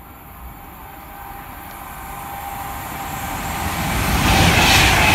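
Avanti West Coast Class 390 Pendolino electric train approaching at speed: a rush of wheel and air noise that grows steadily louder as it nears, with a thin steady whine over it.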